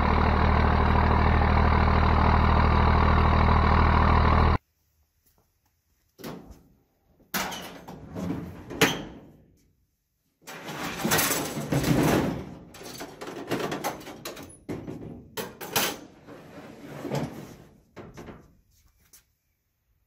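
A loud, steady low drone that cuts off abruptly about four and a half seconds in. After a short pause come irregular clanks, knocks and scrapes of a loose steel pickup tailgate and bumper being shifted on the truck's open tailgate and in the bed.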